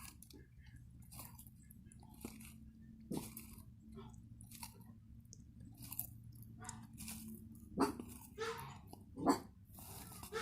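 A pet tortoise biting and crunching its food: irregular crisp bites, a few louder ones near the end.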